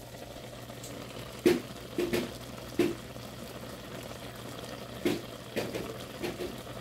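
Diced apples simmering in apple juice in a skillet: a steady bubbling hiss broken by several short, sharp pops and sputters from the pan.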